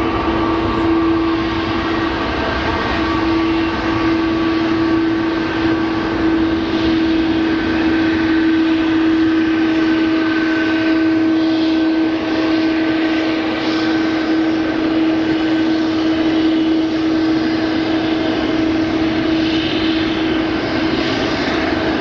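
Jet airliner engines running at a steady pitch: a constant hum with a few fixed higher tones over a rushing noise, with no rise or fall.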